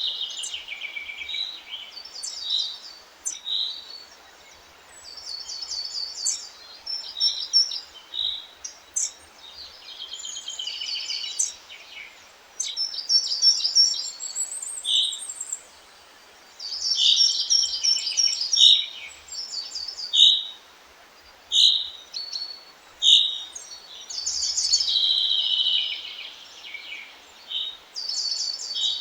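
Several songbirds singing and calling in short repeated phrases and trills, often overlapping, over a faint steady hiss.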